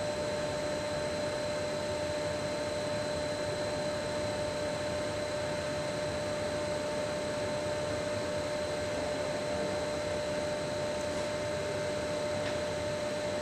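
Steady background hum and hiss with a few constant high whining tones, and a faint tick or two near the end.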